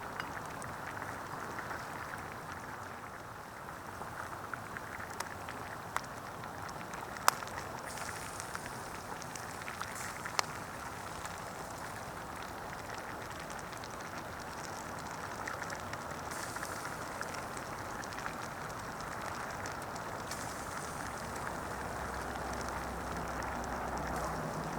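Wood campfire burning with a steady hiss and a few sharp pops, the loudest about seven and ten seconds in.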